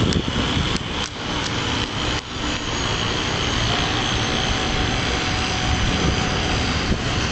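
Small nitro glow engine of a radio-controlled outboard boat running steadily with a high, thin whine, like a tiny jet. A few sharp crackles sound in the first two seconds.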